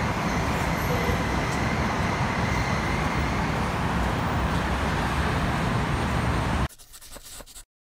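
Heavy road traffic: a steady rush of engine and tyre noise. It cuts off abruptly near the end, leaving a moment of faint clicks before silence.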